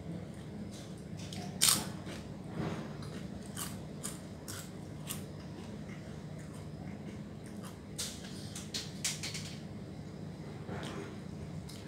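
A person eating by hand and chewing crisp food, with scattered sharp clicks and crackles. The loudest comes about two seconds in and a cluster comes around eight to nine seconds. A steady low hum runs underneath.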